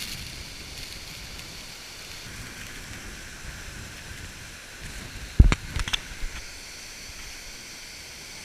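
Waterfall rushing steadily, with a brief cluster of sharp knocks about five and a half seconds in.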